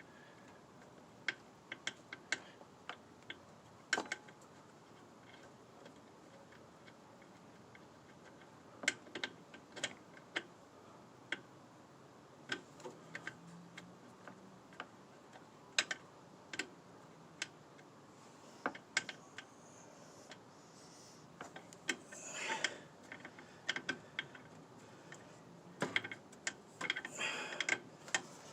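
Irregular metallic clicks and taps from a brake line flare nut and fitting being worked against a master cylinder port while trying to start the thread, with a few closely bunched clicks near the end.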